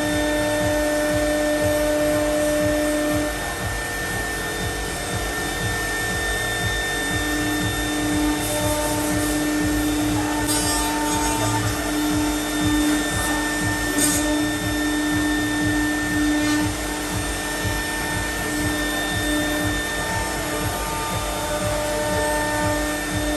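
CNC milling router cutting and trimming aluminium composite panel: a steady machine whine over a constant hiss, with a few brief sharp ticks about ten and fourteen seconds in.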